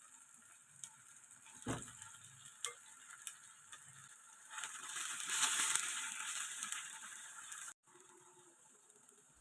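Chicken frying in hot oil in a pan: a few knocks and clicks, then a sizzle that swells from about halfway through and cuts off suddenly near the end.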